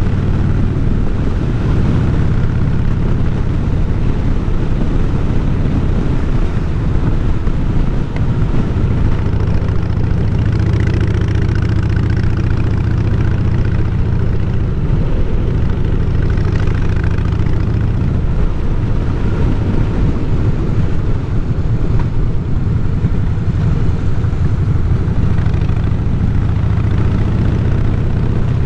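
Harley-Davidson Fat Boy's V-twin engine running as the bike is ridden along, its note mostly steady with a brief dip about eight seconds in.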